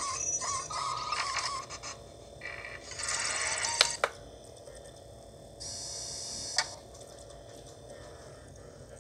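Robot-style sound effects of a DVD main menu played from a TV: a run of electronic bleeps, then two short whirring bursts, each ending in a sharp click, about three and six seconds in.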